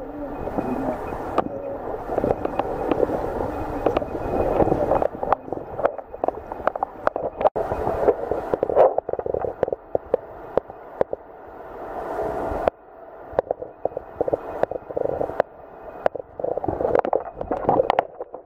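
Muffled, rushing stream water picked up by a submerged camera, with many sharp clicks and knocks scattered through it.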